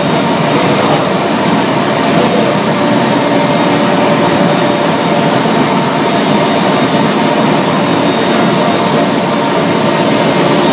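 BOPP film laminating machine running: a steady, loud mechanical noise with a thin, high, steady whine over it.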